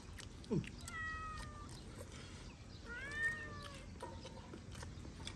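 A cat meowing twice: a short flat call about a second in, then a longer call that rises and falls, near three seconds in.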